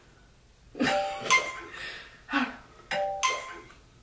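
A bell-like chiming tune: a three-note figure rising from low to high, repeating about every two seconds and starting about a second in.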